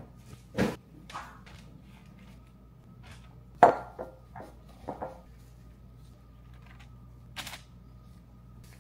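Scattered handling noises of gloved hands working raw meatball mixture: scooping from a glass bowl and setting meatballs down on a parchment-lined baking sheet. There are several short knocks and clicks, the sharpest about three and a half seconds in, with a small cluster just after it.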